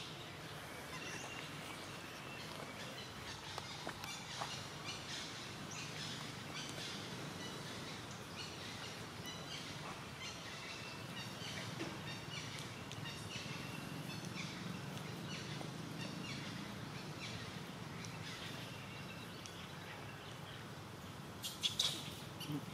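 Outdoor ambience of many small birds chirping in short high calls, over a steady low hum, with a louder brief high-pitched sound near the end.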